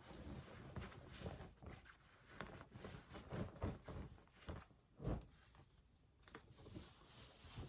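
Clothing fabric rustling and brushing as garments are put on. The rustles are soft and irregular, with a few louder thumps, the strongest about five seconds in.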